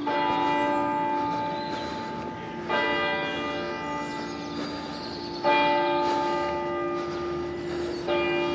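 A church tower bell tolling, struck four times about every three seconds, each stroke ringing on and dying away slowly over a steady hum.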